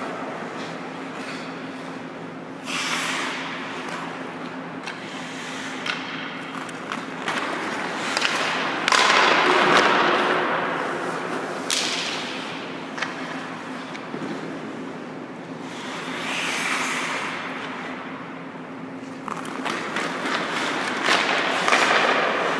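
Hockey skate blades carving and scraping on ice in several long hisses that swell and fade, with a few sharp clacks of stick and puck, over a faint steady low hum.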